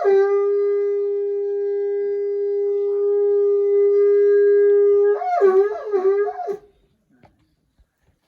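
A conch shell blown as a horn: one long steady note held for about five seconds, then a run of quick notes that dip and rise, ending about six and a half seconds in.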